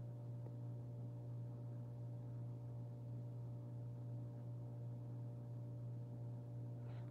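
A steady low hum with a few fainter steady tones above it, unchanging throughout.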